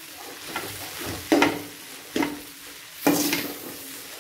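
Metal spatula stirring crumbled idli upma in a metal kadai, knocking and scraping against the pan's side about once a second, four strokes in all, each with a short metallic ring.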